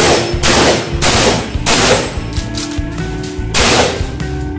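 Shotgun fired in quick succession: about four shots roughly half a second apart, then one more about three and a half seconds in, each with a brief echoing tail.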